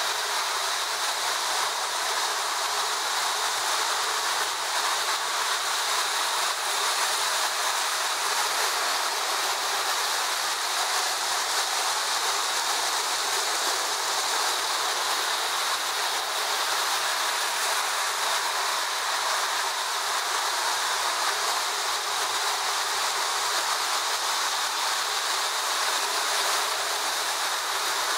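Several tinplate electric toy trains running at once on three-rail track, making a steady, even running noise that does not change.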